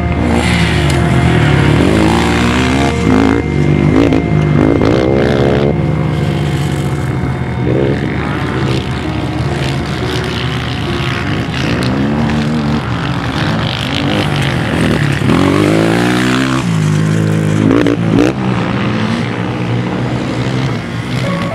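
Off-road racing engines revving hard, their pitch climbing and dropping over and over through the gears, with several engines overlapping.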